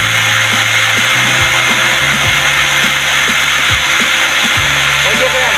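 Angle grinder running at full speed with a thin paper cutting disc, cutting into a plastic soda bottle: a steady motor whine under a dense grinding hiss.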